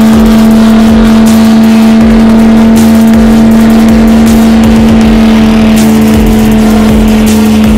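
Pickup truck engine held at high, steady revs during a burnout, the rear tyre spinning and smoking. Loud, with a steady pitch that barely changes.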